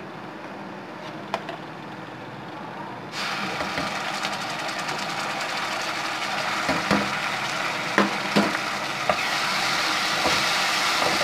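Hot oil and fried onions sizzling in a pot. About three seconds in, the sizzle jumps suddenly louder as ginger-garlic paste goes into the hot oil, and it keeps building. Spoons knock against the pot a few times during stirring.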